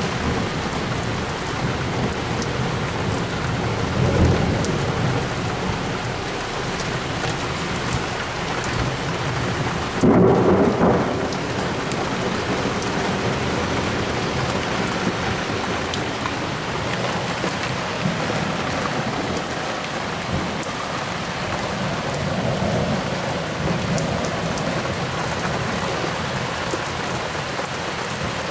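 Heavy downpour during a thunderstorm: steady rain hiss, with thunder rumbling about four seconds in, a louder, sudden peal about ten seconds in, and a weaker rumble a little past twenty seconds.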